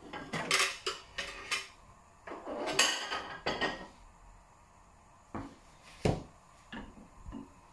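Kitchen utensils and cookware knocking and clinking: a quick run of light clinks in the first second and a half, a busier clatter in the middle, then a few single knocks.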